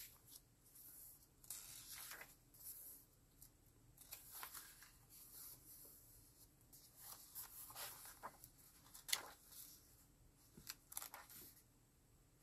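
Faint rustling of old paper book pages turned by hand, several short soft swishes over near-silent room tone.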